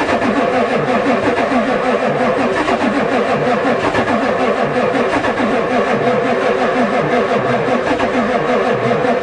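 Ford diesel truck's starter cranking the engine steadily and rhythmically, turning it over without it firing. It is a cold-weather no-start: the owner thinks the new glow plug controller isn't working, since it never clicks, and doubts the engine has enough compression to start this cold.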